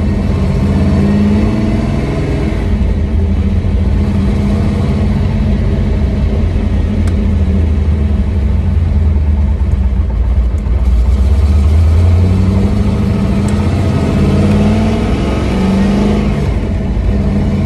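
Pontiac Trans Am's LT1 V8 running under way, heard from inside the open-roofed cabin. The engine note rises and falls in pitch with the throttle, dropping low for most of the middle and climbing again after about twelve seconds.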